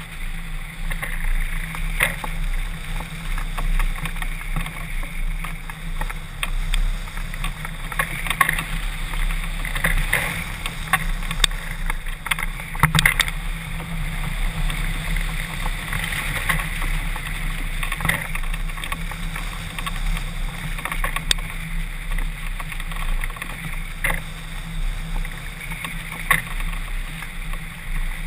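Wind rushing over a camera mounted on a hang glider in flight: a steady rush with a low hum, broken by scattered sharp ticks.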